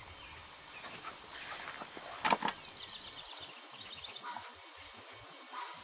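Scattered bird calls around a peafowl pen, with one sharp knock about two seconds in and a quick run of high chirps right after it.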